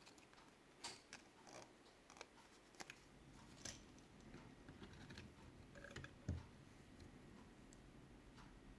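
Faint handling noises from bench work: scattered light clicks and scrapes, with a low knock about six seconds in.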